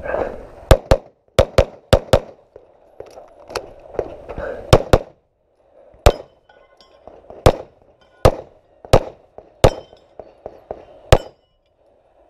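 Pistol shots in a competition string: quick pairs on paper targets in the first five seconds, then single shots spaced about a second apart at a steel Texas star, with faint metallic ringing from the steel plates being hit.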